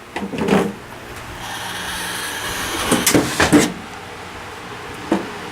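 Handling of a desktop PC case: a sliding scrape lasting about a second and a half, with knocks and a sharp knock near the end.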